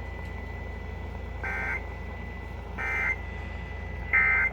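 Emergency Alert System end-of-message (EOM) signal: three short bursts of warbling digital data tones, about a second apart, each louder than the last, marking the end of the warning broadcast. A faint steady high tone and a low hum run underneath.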